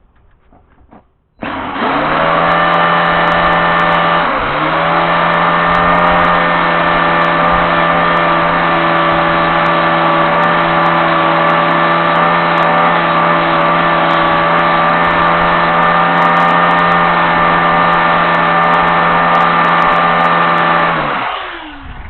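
A motor starts abruptly and runs at a steady pitch for about twenty seconds, with a brief dip in pitch a few seconds in, then winds down and stops near the end.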